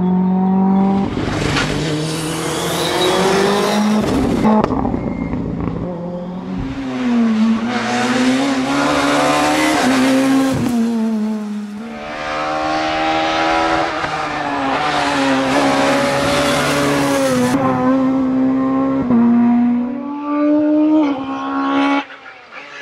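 Rally cars at full stage speed, one after another. Engines rev hard, and the pitch rises and falls through gear changes with noise from the car and tyres. The sound changes abruptly several times as each pass or clip gives way to the next.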